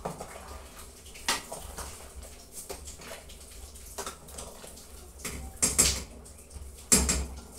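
Metal spoon stirring soup in a stainless steel pot, clinking against the pot several times, the loudest knocks near the end.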